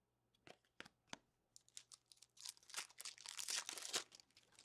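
A few light clicks, then crinkling and tearing of a hockey card pack's wrapper or plastic packaging, loudest about two to four seconds in.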